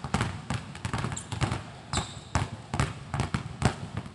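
Two basketballs dribbled on a wooden court floor, sharp bounces coming about three a second in an uneven rhythm. There is a brief high squeak about halfway through.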